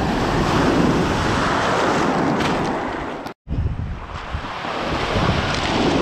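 Sea waves breaking and washing up a pebble beach in two surges. The sound cuts out for a moment a little over three seconds in.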